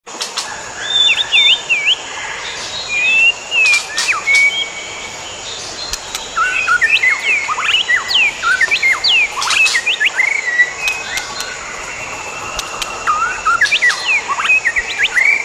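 White-rumped shamas singing: a run of varied clear whistled notes and quick rising and falling sweeps in bouts, with short pauses between phrases.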